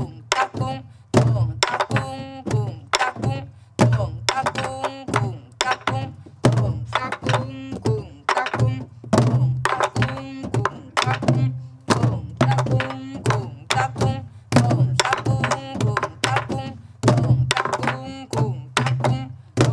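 Sori-buk, the barrel drum that accompanies pansori, played in the ten-beat eotmori rhythm, counted as three-two-three-two: deep open strokes on the drum head alternating with sharp stick strokes, in steady repeating cycles. A voice sounds along with some of the strokes.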